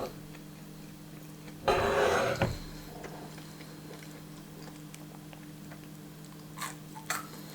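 A crunchy bite into a grilled sandwich's toasted bread about two seconds in, followed by quiet chewing with a couple of short mouth sounds near the end. A steady low hum runs underneath.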